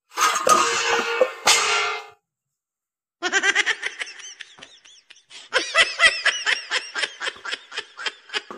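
A clattering crash with ringing for about two seconds, like steel plates and a metal basin falling to the ground. After a second of dead silence, laughter in quick repeated bursts that rise and fall in pitch.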